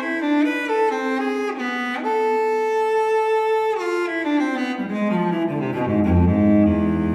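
Background music played on bowed strings: a melody of short notes, then one long held note about two seconds in, then a line falling into low, deep notes near the end.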